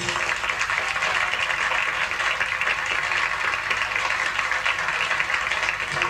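Audience applauding steadily, a dense even clatter of many hands.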